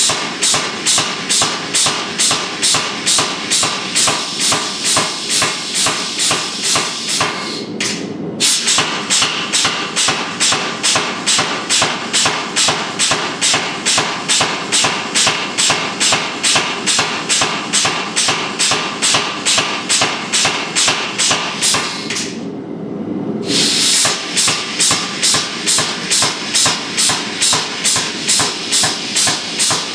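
Blacksmith's hammer striking hot steel on an anvil in a steady rhythm of about two blows a second, stopping briefly twice, over a steady hiss.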